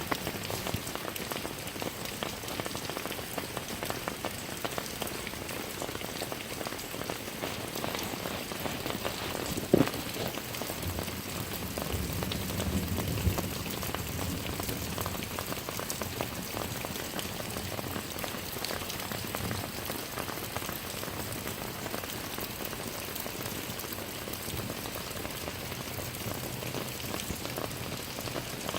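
Rain falling in a steady patter of many small drops. About ten seconds in there is a single sharper knock, followed by a brief low rumble for a few seconds.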